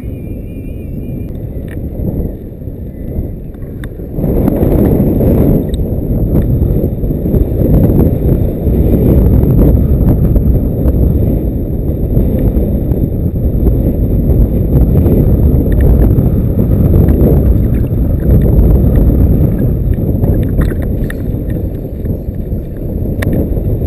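Wind buffeting the action camera's microphone, a loud low rumble that gets louder about four seconds in, over choppy lake water lapping at the float tube.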